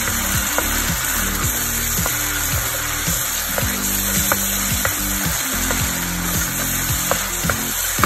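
Chili-tomato paste sizzling in hot peanut oil in a wok as a wooden spatula stirs it, with a steady hiss and scattered light clicks and scrapes of the spatula on the pan.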